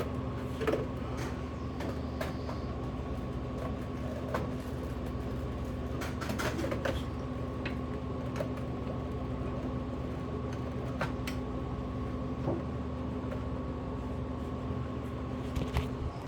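Steady electrical hum of a running vending machine's refrigeration unit, with scattered light clicks and knocks of handling.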